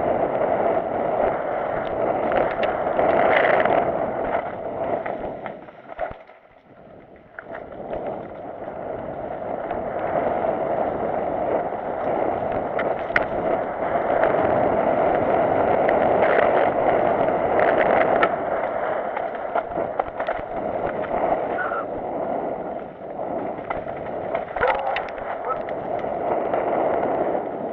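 Mountain bike riding fast down a dirt trail, heard through a bike- or helmet-mounted action camera: a steady rush of wind and rolling tyres with frequent clattering knocks as the bike goes over roots and stones. It quietens for a moment about six seconds in.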